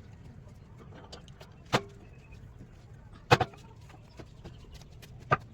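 Three sharp knocks, spaced about a second and a half apart, with a few fainter ticks over a low background.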